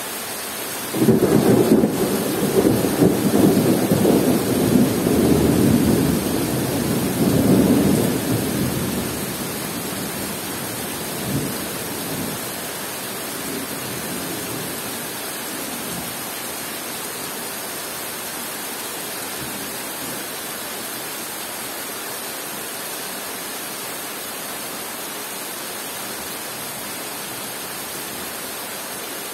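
Heavy rain falling steadily on forest foliage. About a second in, a long roll of thunder rumbles for several seconds, gives one last smaller grumble a few seconds later, then dies away under the rain.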